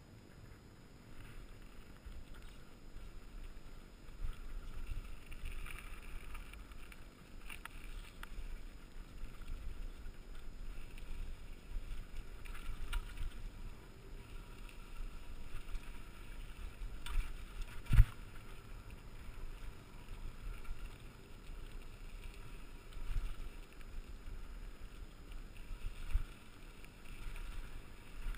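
Mountain bike riding fast down rocky dirt singletrack, picked up by a GoPro Hero2's microphone: a steady low rumble of the tyres with wind buffeting the mic, and scattered rattles as the bike hits rocks. One sharp knock about 18 seconds in is the loudest sound.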